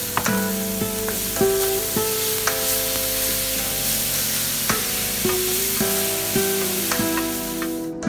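Tomato wedges sizzling and frying in a hot pan, a steady hiss, with acoustic guitar music over it. The sizzle cuts off suddenly near the end, leaving only the guitar.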